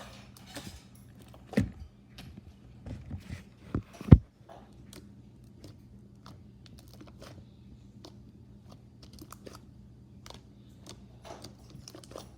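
Homemade slime being squeezed and worked by hand, making a string of small squelching pops and clicks, with two louder thumps about one and a half and four seconds in.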